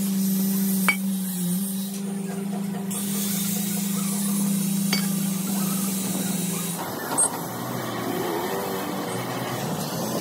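Workshop machinery running steadily with a low hum and hiss, with a couple of light metallic clinks; about seven seconds in, the steady hum stops and a rougher, noisier workshop sound takes over.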